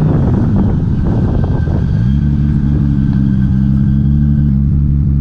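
The Cefiro's swapped-in 2JZ-GTE straight-six engine is heard running. For about two seconds it sounds rough and uneven, then from about two seconds in it settles into a steady, even engine note.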